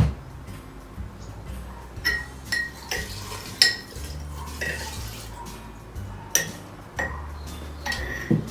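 Spirit being poured from a bottle into a glass jar of minced garlic. A knock at the start, then repeated short ringing clinks of glass on glass.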